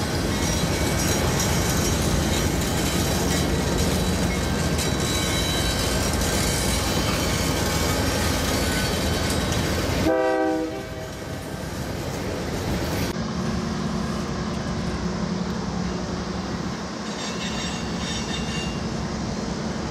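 Freight train rolling across a bridge: a steady rumble and clatter of wheels with faint high squeal. About halfway a short horn note is cut off, and then the diesel locomotives of an approaching freight give a low, steady drone.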